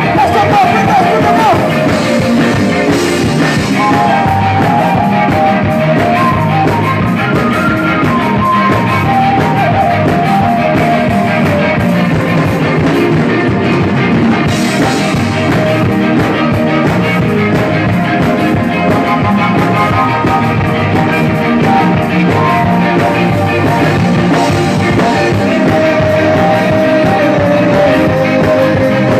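Live rock band playing loudly through a PA, with a man singing lead into a microphone over guitar, bass and drum kit.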